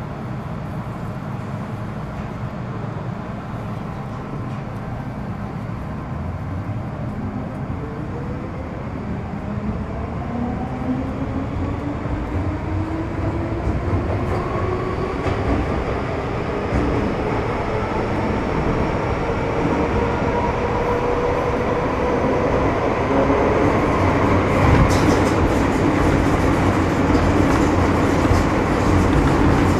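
Inside an MTR Metro Cammell M-Train (C192) electric multiple unit pulling away and accelerating. About seven seconds in, the whine of its GEC GTO chopper traction equipment sets in and rises steadily in pitch, growing louder over the running rumble of wheels on track.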